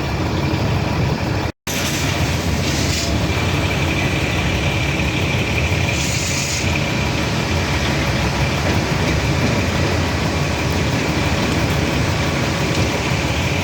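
Heavy diesel engine running steadily, with two short air hisses and a steady high whine over the low rumble.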